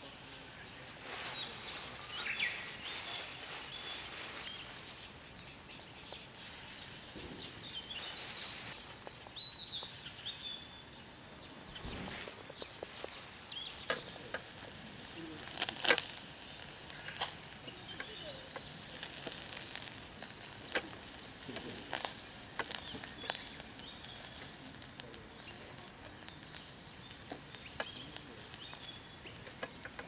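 Chicken-and-leek yakitori skewers sizzling on a wire grate over charcoal in a small shichirin grill: a steady hiss with scattered sharp crackles and pops, the loudest about halfway.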